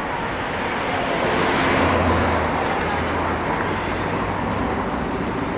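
An electric train on the JR Joban Line passing, a steady rushing noise that swells to its loudest about two seconds in and carries a low hum, then eases off.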